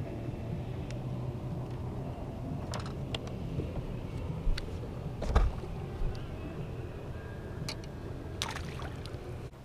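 Steady low hum and water noise of a fishing boat on open water, with scattered clicks and knocks of a rod, reel and feet on the boat deck as a fish is reeled in and swung aboard. The loudest is a low thump about five seconds in.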